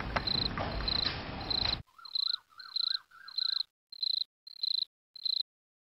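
Crickets chirping in short, evenly spaced pulses about twice a second. For the first two seconds they sit over a background hiss that cuts off suddenly. After that a lower, repeated chirping call joins them.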